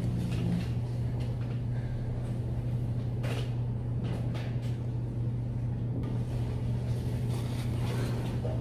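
Steady low hum of study-cafe room noise, with a few soft rustles and light knocks as clothing and arms shift on a desk.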